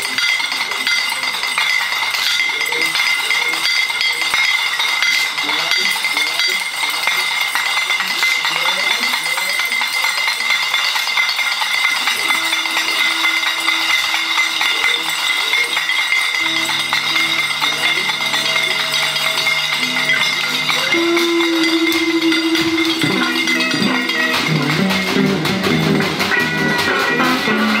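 Dense rattling and clinking from a sound installation, over a steady high ringing tone. Long held electric guitar notes come in about halfway through and build toward the end.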